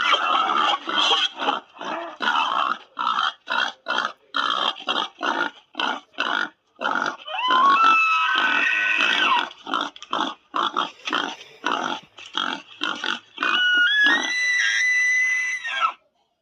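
Creature vocal sound effects: a fast run of short grunt-like calls, about three a second, broken by squealing tones that glide upward in the middle and again near the end, then cutting off suddenly just before the end.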